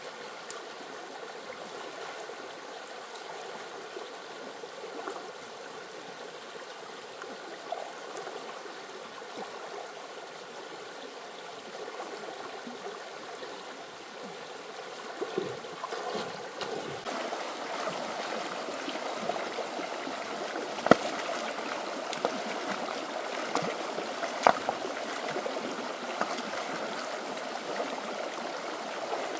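Stream water running steadily, growing louder about halfway through, with two sharp knocks in the second half.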